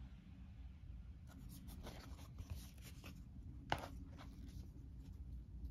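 Stiff cardboard pawn sheets rustling and sliding against each other as they are handled and laid on a wooden table, with one sharp tap a little under four seconds in.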